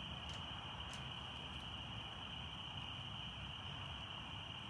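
Crickets chirring in a steady, unbroken high chorus, with a few faint clicks.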